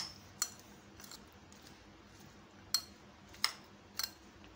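Metal spoon stirring chickpea chaat in a glass bowl, clinking against the glass with about six sharp clinks at uneven intervals.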